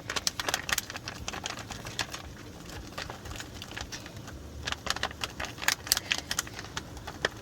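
Irregular sharp clicks and light clatter from cooking at a pan, coming in uneven clusters over a low steady background.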